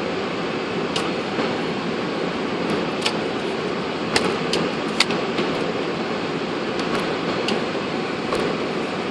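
Steady rushing vehicle-interior noise, with a dozen short sharp clicks and rattles scattered through it, the loudest about four and five seconds in.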